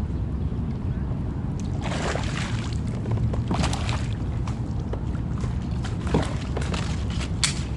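Water splashing and sloshing against a small fishing boat in four short bursts, the sharpest near the end, over a steady low rumble.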